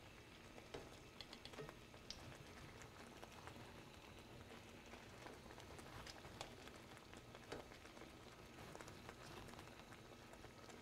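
Faint simmering of a lemon and white-wine sauce in a skillet, a soft even bubbling with a few light ticks of a fork against the pan.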